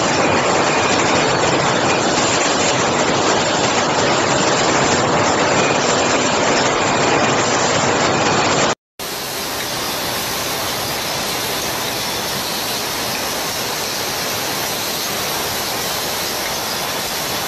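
Steady rushing hiss and roar of a glass-bottle forming machine line making red-hot bottles. It breaks off for a moment about nine seconds in, then carries on a little quieter.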